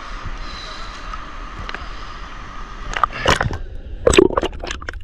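Sea water splashing and gurgling around the camera's microphone as it is dipped under the surface. A steady hiss runs for the first three seconds, then comes a run of loud, irregular splashes.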